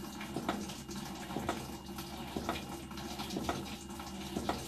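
Fisher & Paykel Smart Drive washing machine filling with water, with a steady rush of water and a low hum. A sharp pulsing click comes about twice a second. This pulsing during the fill is the symptom traced to a faulty rotor position sensor.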